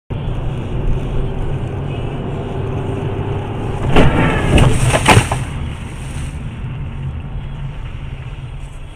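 Car travelling with steady engine and road noise, then a collision about four seconds in: three loud bangs within about a second and a half, after which the noise slowly dies down.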